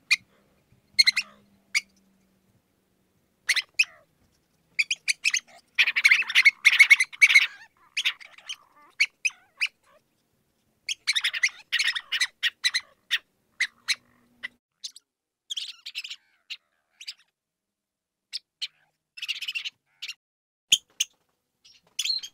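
Mouse squeaking: short high-pitched squeaks, some single and some in quick chattering runs, the densest about a quarter of the way in and again about halfway.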